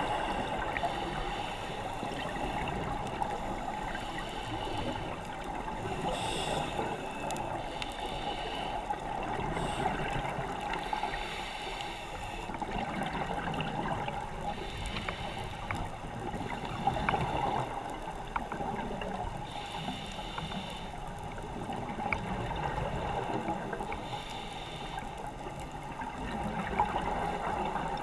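Underwater sound of a scuba diver's regulator breathing, with bursts of exhaled bubbles gurgling every four to five seconds over a steady hum and scattered faint clicks.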